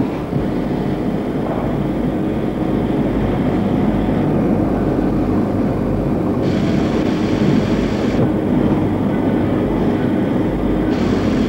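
Pneumatic machinery running with a steady rumble. Compressed air hisses twice, each time for about a second and a half, with sharp starts and stops.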